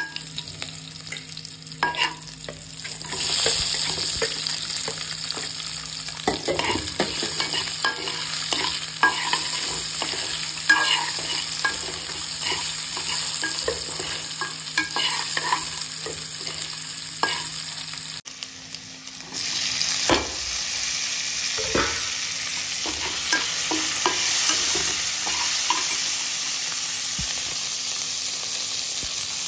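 Cumin seeds, green chillies and potato strips sizzling in hot oil in an aluminium kadai, with a metal spoon stirring and scraping the pan in many small clicks. The sizzle grows louder about three seconds in and again in the second half.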